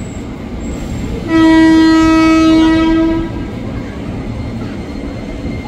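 Commuter electric train horn sounding one steady blast of about two seconds, over the steady rumble of a train running through the station.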